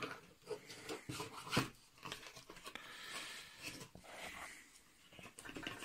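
Tissue paper crinkling and rustling as hands rummage in a cardboard box, with a few light knocks, the sharpest about a second and a half in.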